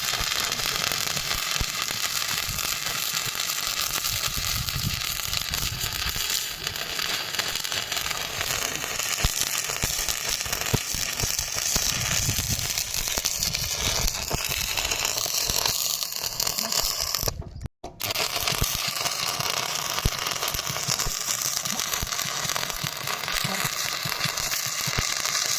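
Electric arc welding: the arc crackles and spits steadily, cutting out briefly once about two-thirds of the way through.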